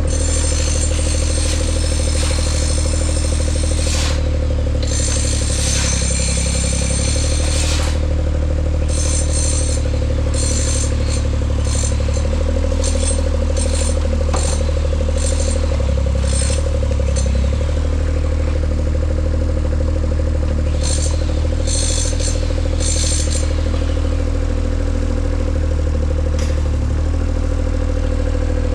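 An engine running steadily, with a low drone and a constant whine, and a high hiss or rattle that comes and goes several times.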